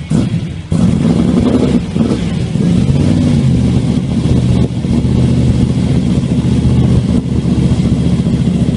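Twin-turbocharged 632-cubic-inch big-block Chevrolet V8 in a 1968 Camaro, breathing through four mufflers, idling steadily and loudly after a brief dip in the first second.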